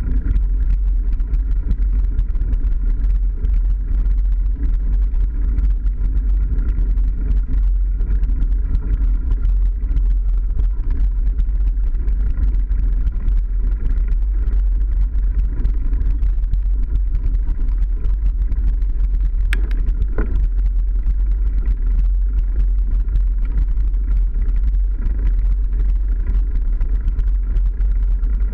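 Mountain bike riding a dirt forest track: a steady, deep rumble of wind and the bike's rattle on the camera's microphone, with many small clicks and one sharper clack about twenty seconds in.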